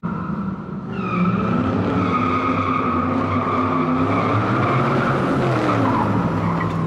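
Car tyres squealing in a burnout over a running engine. It starts suddenly, and a steady high squeal sets in about a second in.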